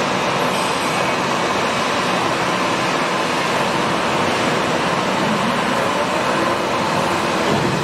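CNC vertical lathe running: a steady, even machine noise with a faint hum, no change in level.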